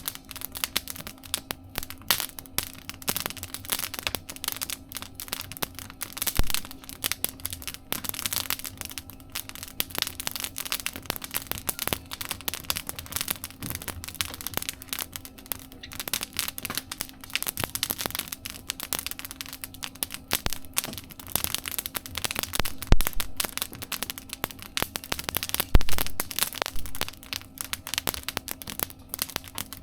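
Campfire crackling in a mesh fire-pit stove: a dense, irregular run of pops and snaps, with a few louder pops in the second half.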